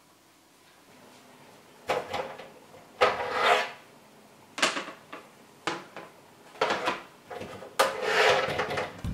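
Plastic chopping boards in a Joseph Joseph storage case being handled: a series of sharp knocks, with two longer sliding scrapes about three seconds in and near the end as the boards are drawn against the case.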